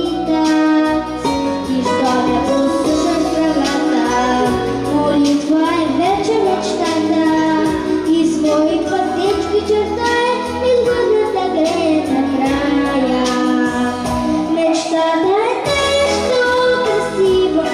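Children's vocal ensemble singing a pop-style song over instrumental accompaniment with a steady beat.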